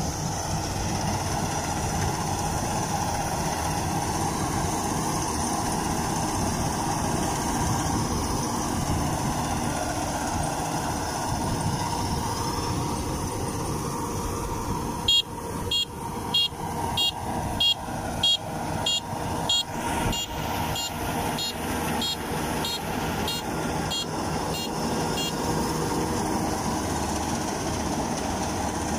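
Kubota DC-93 combine harvester running steadily while it cuts rice. About halfway through, a run of short, high beeps sounds about twice a second for some ten seconds, then stops.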